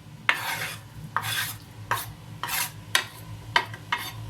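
Chopped onion being scraped off a chopping board with a knife into the soup pot: a series of about seven short rasping scrapes at an uneven pace.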